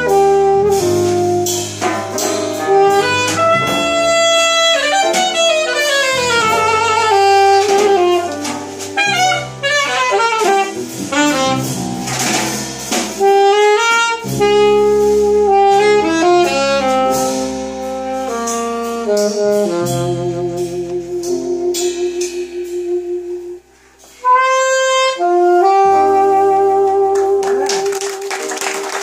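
Alto saxophone playing a jazz ballad with piano and electric bass accompaniment. The saxophone plays fast runs in the middle and ends on a long held note.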